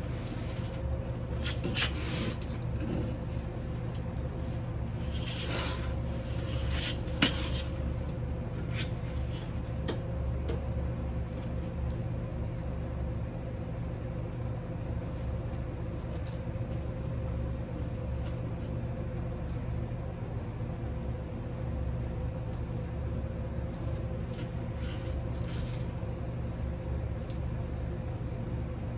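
Steady low electrical hum, with scattered light clicks during the first ten seconds and one sharp knock about seven seconds in.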